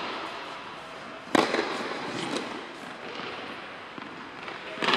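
Tennis balls struck with rackets in a large indoor tennis hall, each hit a sharp crack with a long echo. The loudest hit comes about a second and a half in, a few smaller knocks follow, and another hit lands near the end.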